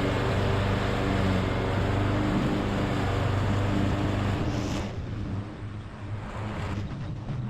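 Craftsman ride-on lawnmower engine running steadily while mowing, a constant drone that eases off and gets quieter about five seconds in.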